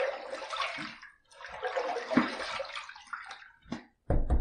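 Water splashing as shaving lather is rinsed off the face with the hands, in two spells, a short one and then a longer one of about two seconds. A brief low thump comes near the end.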